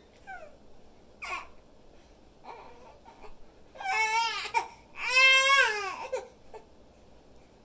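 Infant vocalizing: a few short high squeaks in the first seconds, then two longer, louder fussing cries about four and five seconds in, each bending in pitch.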